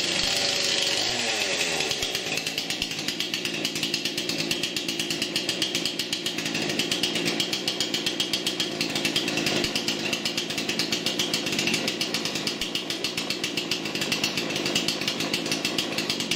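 Craftsman S205 46 cc two-stroke chainsaw engine just after a cold start. Its revs fall over the first couple of seconds, then it runs steadily at idle with a fast, even pulse.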